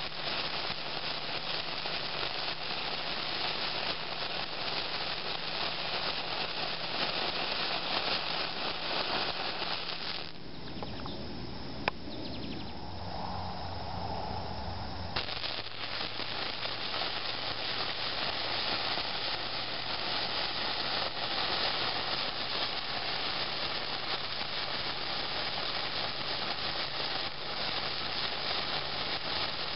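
Handmade sparklers of potassium nitrate, magnesium and charcoal burning with a loud, steady hiss. About ten seconds in the hiss breaks off for about five seconds, with one sharp click, while a match is held to the next sparkler; then the hiss starts again and runs on.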